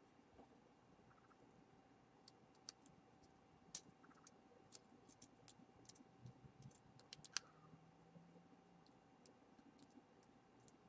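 Faint, irregular small clicks and ticks of a precision screwdriver and tools working a tiny screw inside an iPhone 4, with one louder click about seven seconds in, over a faint steady hum.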